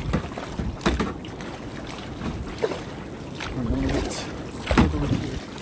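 Water splashing and sloshing around a sea kayak on the open ocean, with a few sharper splashes, about one, three and a half and five seconds in, and wind rumbling on the microphone.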